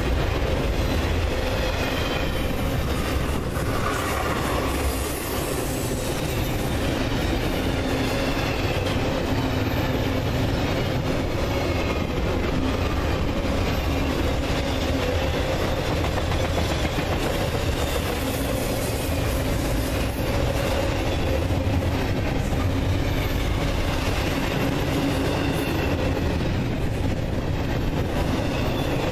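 Intermodal freight train cars rolling past: a steady rumble and clatter of steel wheels on the rails, with a faint thin wheel squeal on top.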